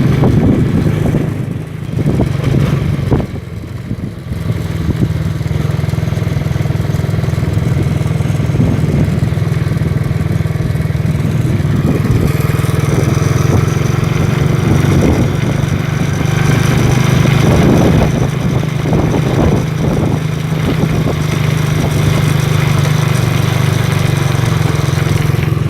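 Motor vehicle engine running steadily, with a low steady hum, dipping briefly in loudness about two and three and a half seconds in.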